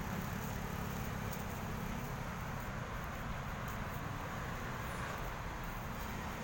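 Steady low background rumble with no distinct events, the kind of hum heard in a city park.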